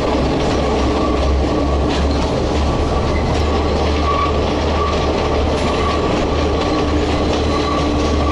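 Passenger train running along the track, heard from beside a moving carriage: a steady, loud rumble of the wheels on the rails.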